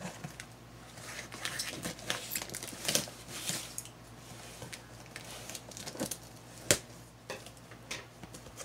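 A cardboard shipping box being opened by hand: scissors cutting through the packing tape, the box scraping and shifting on the table, and the flaps pulled open with a rustle of packing paper. A single sharp knock stands out about two-thirds of the way through.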